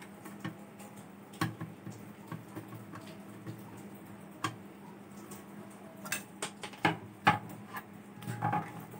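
Scattered light metallic clicks and knocks from a screwdriver and the sheet-metal case of a DD Free Dish satellite receiver as its cover screws are taken out and the case is handled, over a faint steady low hum.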